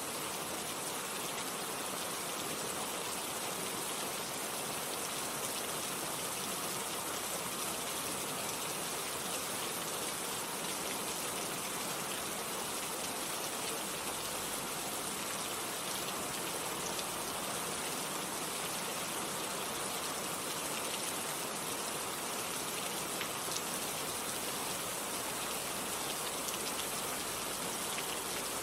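Steady heavy rain falling, an even hiss with scattered individual drops pattering on surfaces.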